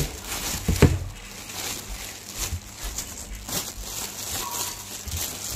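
Thin plastic bag crinkling and rustling in irregular crackles as it is handled and pulled off a sneaker, with a thump about a second in.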